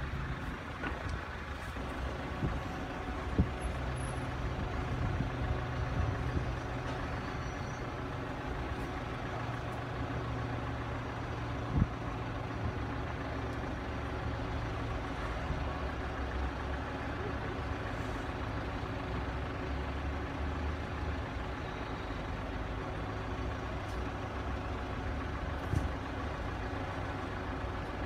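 Level crossing warning alarm sounding while its lights flash, over a low, steady vehicle rumble, with a few sharp knocks, about 3, 12 and 26 seconds in.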